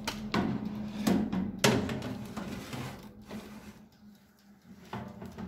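A metal baking tray knocking and scraping as it is slid onto the wire rack of a countertop electric oven. There are several sharp clanks in the first two seconds and one more knock near the end.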